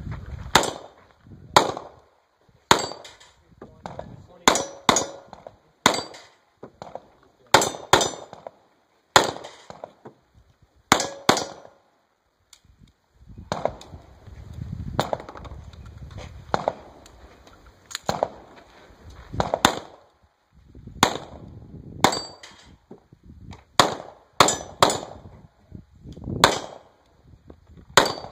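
A 9mm pistol firing a long, fast string of shots at steel targets, roughly one shot every half second to second, with a pause about twelve seconds in. Steel plates ring after many of the hits.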